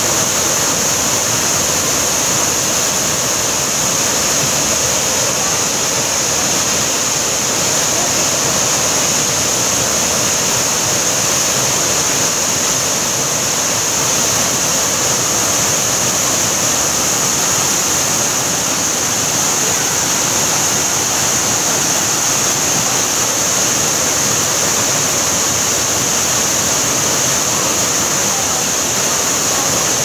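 Waterfall pouring down a rock face into a pool: a steady, even rush of falling water with a constant high hiss over it.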